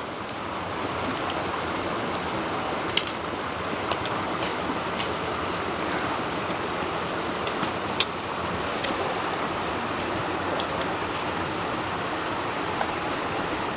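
Steady rush of the Verkeerder Kill's water flowing under ice just above the falls, with a scattering of short sharp clicks.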